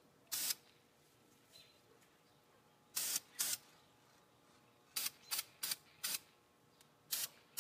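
Spray paint hissing out in short blasts, about nine in all, some in quick pairs, with quiet between them.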